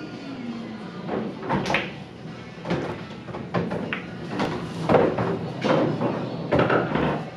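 Irregular knocks and clacks, about ten of them, spread unevenly over several seconds against busy room noise.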